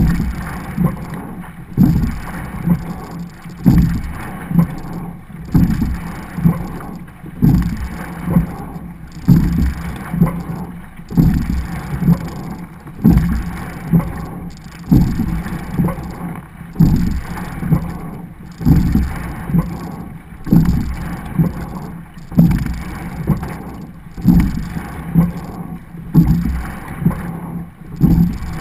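Double sculling racing shell being rowed hard, heard on board. There is a knock with each stroke, about one every 1.8 seconds, over a steady rush of water along the hull.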